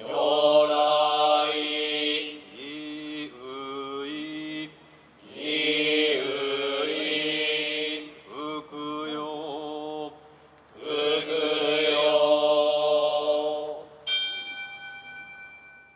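Buddhist monks chanting shōmyō, in three long sung phrases with short pauses between them. Near the end a bell is struck once and rings on, fading away.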